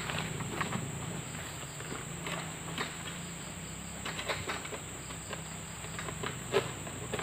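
Steady high-pitched drone of insects, with scattered clicks and rustles as a harvester works a long-poled oil palm sickle (egrek) up in the palm crown.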